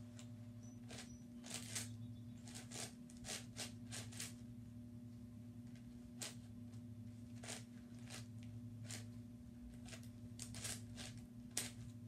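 YuXin 9x9x9 puzzle cube's plastic layers being turned by hand, making short, irregular clicks and clacks, a couple each second. A faint steady low hum runs underneath.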